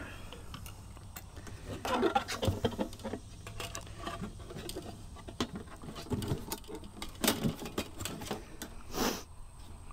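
Handling noise from a small plastic diesel tank and a wire being fed through a hole drilled in it: irregular light clicks, taps and brief scrapes of plastic and metal.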